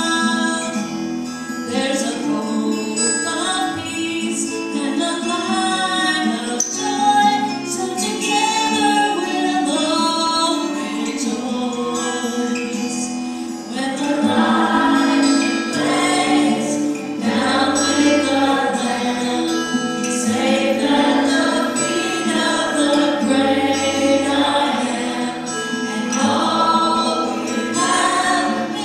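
A choir sings a song over instrumental accompaniment. It grows fuller and louder about halfway through.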